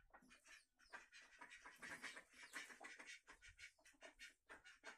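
Faint, quick, irregular ticking of a hen pecking feed pellets off a plastic feed bag.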